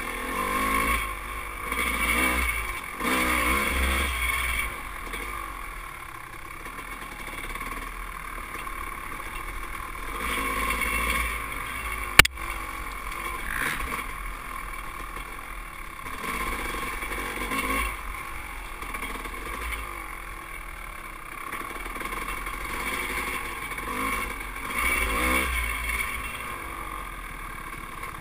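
Dirt bike engine running under the rider, revving up and down as the bike is ridden over rough ground. There is one sharp knock about twelve seconds in.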